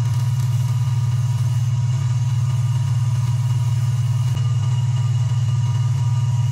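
Lathe motor running steadily with a low hum while the walnut and silver pen blank spins between centres.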